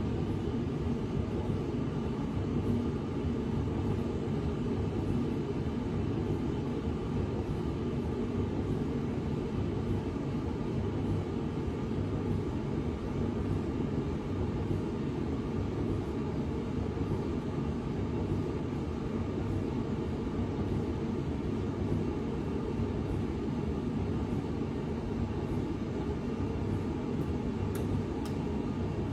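A machine running steadily through a test cycle, a continuous low rumble with a faint steady hum above it.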